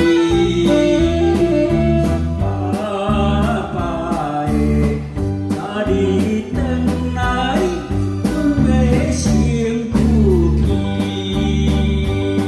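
A man singing a slow Taiwanese Hokkien ballad into a microphone over a PA, backed by electric guitar, keyboard and a steady drum beat.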